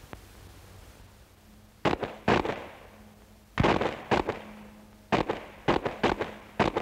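Machine-gun fire: sharp gunshots in single shots and short bursts of two or three, each with a brief ringing tail, beginning about two seconds in and coming thicker toward the end.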